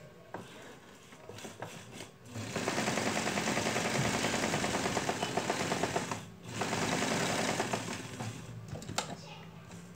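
Electric sewing machine stitching a seam through fabric: a fast, even clatter of needle and motor that starts about two seconds in, stops briefly past the middle, then runs again for about a second before easing off.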